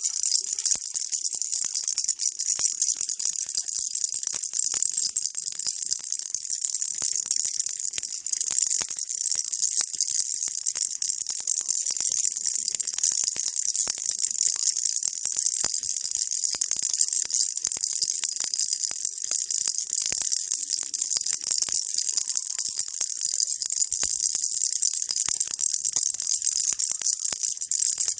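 Baby rattle shaken continuously: a steady, dense, high-pitched rattle of countless tiny clicks.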